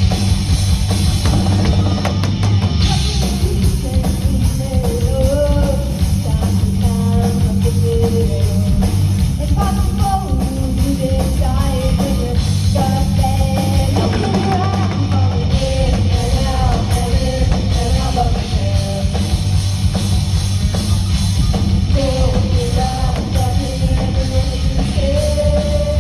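A rock band playing a song live at full volume, with a drum kit and a heavily distorted electric guitar over a loud, steady bass, and a wavering melody line riding on top.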